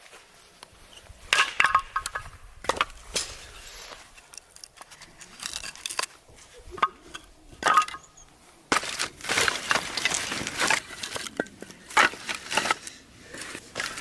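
A run of sharp knocks and ringing clinks from hard objects being handled, with a spell of crunching and snapping about two-thirds of the way through.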